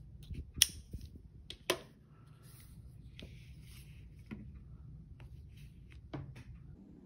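Base pad being slid and clicked onto a Western Arms SV R-type airsoft gas magazine: two sharp clicks in the first two seconds, then softer scraping and handling clicks, over a low steady hum.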